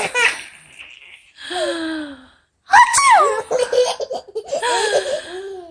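A baby belly-laughing in choppy bursts. About three seconds in, a loud sneeze sets off a fresh run of giggling laughter.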